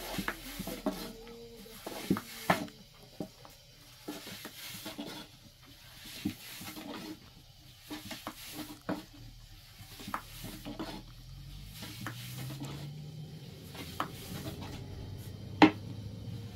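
Irregular clinks, knocks and rubbing of household things being handled, with one sharp knock near the end, the loudest. A low steady hum comes in about twelve seconds in.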